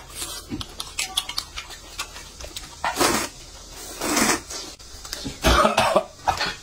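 Close-miked eating sounds: noodles being slurped in several short noisy pulls, the loudest about five and a half seconds in, between small wet clicks of chewing and chopsticks.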